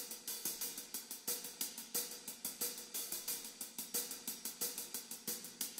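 Logic Pro Drum Kit Designer virtual drum kit playing a steady groove led by quick, even hi-hat strokes, several a second, with lighter drum hits underneath.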